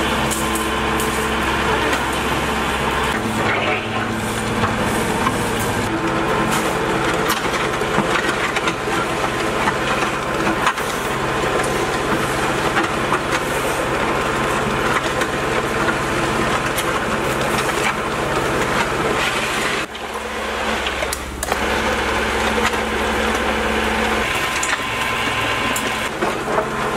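Concrete mixer driven by its freshly rewound electric motor, running steadily under load: a motor hum over the noisy churn of concrete in the mixing basin.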